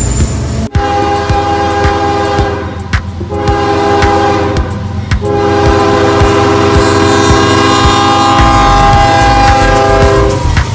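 A CSX freight diesel locomotive's multi-note air horn sounds a long blast, a shorter one, then a long blast of about five seconds as it approaches a grade crossing. Under the horn is the low rumble and clack of the train's wheels on the rails. The first moment is a different passing freight's rumble, which cuts off abruptly.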